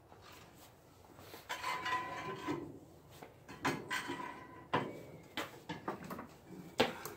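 Irregular scrapes and knocks as the long handle of an ice scraper is worked under the edge of a steel snow plow blade on paving, to lever the blade up. Some of the scrapes carry a brief ringing tone.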